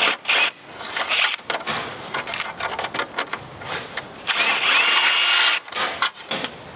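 Power drill running in short bursts, with a longer run of about a second some four seconds in, its motor whine rising slightly as it spins up.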